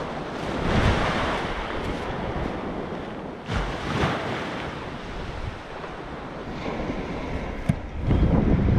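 Small waves breaking and washing up a sandy beach, with wind buffeting the microphone. The surf noise swells about a second in and again around four seconds in. Near the end there is a single sharp click, then the low wind rumble grows louder.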